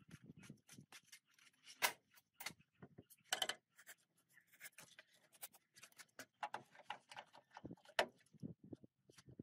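Faint, irregular small clicks, taps and scrapes of hand work on the old metal body parts of a UAZ 469. There are sharper knocks about two seconds in, around three and a half seconds in, and about eight seconds in.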